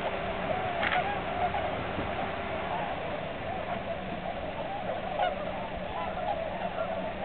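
A large flock of tundra swans calling all at once: a dense chorus of many short, overlapping calls that each rise and fall, with no break.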